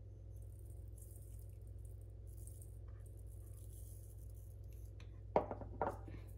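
Faint shakes of dried rosemary from a spice jar into a plastic measuring spoon, then two sharp knocks about five seconds in as the jar is set down on the counter, over a steady low hum.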